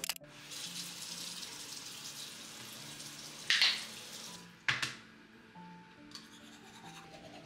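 Bathroom sink tap running in a steady hiss for about four and a half seconds, with a brief louder gush partway through, then a sharp click as it stops. Faint toothbrush scrubbing follows near the end, under soft background music.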